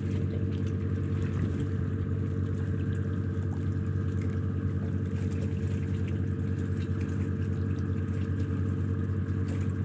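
A steady low drone from an engine or machine running at a constant speed, with a fine even pulsing and no change in pitch.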